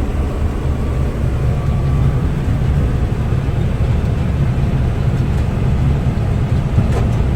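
Combine harvester running while harvesting oats: a steady low drone of engine and machinery.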